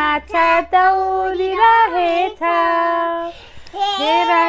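A young girl and a woman singing a Nepali children's action song together, unaccompanied, with long held notes and a short break a little after three seconds in.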